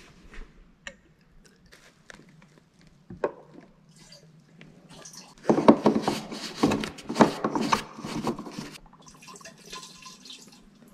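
Fuel stabilizer poured from a plastic bottle into a snowmobile's fuel tank filler neck, glugging in quick irregular pulses for a few seconds from about halfway in, then a quieter trickle. A few faint clicks come before it.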